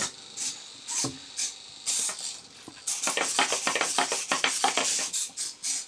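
Cheap 9g hobby servos of a small 3D-printed robot dog buzzing in quick short bursts as it runs its programmed prancing animation, becoming busy about three seconds in.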